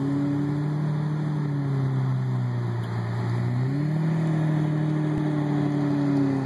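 Sports car engines running at low revs as the cars creep past, a steady low engine note that steps up slightly about three and a half seconds in.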